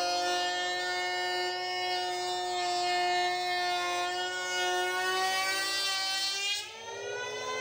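Electric hand planer, mounted under a board as a thickness planer, running with a steady motor whine while a strip of wood is pushed through it at maximum depth of cut. Near the end the sound dips briefly, then the whine rises to a higher pitch as the workpiece clears the cutter and the motor speeds up.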